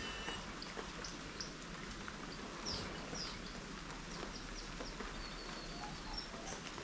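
Light rain falling with a steady hiss while birds call, giving many short, high chirps that slide downward, scattered throughout.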